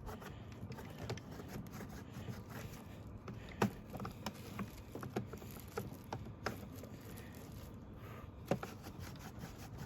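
A rag rubbing and wiping the dust out of a Roomba's plastic part, with scattered light clicks and knocks as the part is handled.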